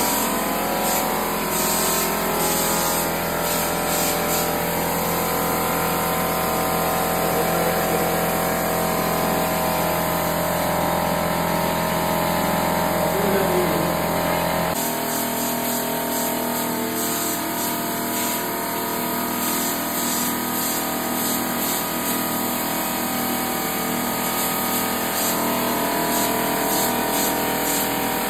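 Electric pancake air compressor running with a steady motor whine, under the hiss of compressed air from a hand-held spray gun working on the walls. About halfway through, the low hum drops away and the sound changes character.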